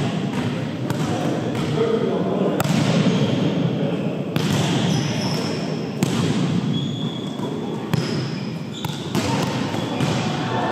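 A volleyball is struck by hand again and again during a rally: a series of sharp, irregular smacks from serves, passes and sets, echoing in a large gymnasium, with players' voices underneath.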